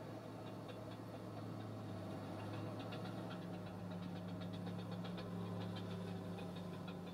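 Caterpillar crawler bulldozer heard from a distance: a low, steady engine drone that grows louder about three seconds in as the machine tips over the edge of a wood chip pile and goes down its face, with a faint scatter of clicks on top.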